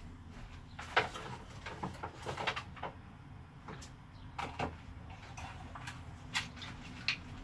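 Irregular clicks and knocks of small objects being rummaged through and handled, the sharpest about a second in, as tool accessories are fetched; the mini drill itself is not running.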